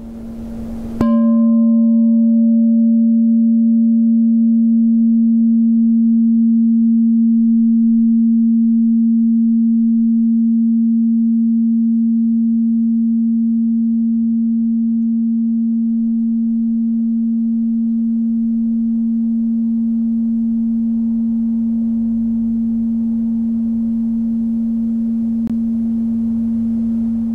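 Frosted quartz crystal singing bowl struck once about a second in. Its single low tone rings on steadily and fades very slowly, while the higher overtones die away within the first few seconds.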